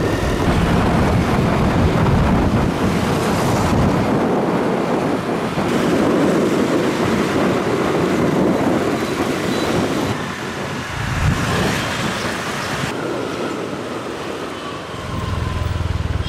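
Wind rushing over the microphone and road and traffic noise from riding on the back of a motorbike in city traffic, a loud rough rumble that changes abruptly a few times.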